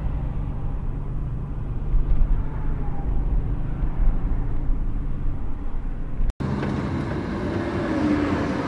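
Steady road and engine rumble heard from inside a car driving in highway traffic. About six seconds in there is a brief drop-out in the sound. After it the road noise is brighter, with a faint whine.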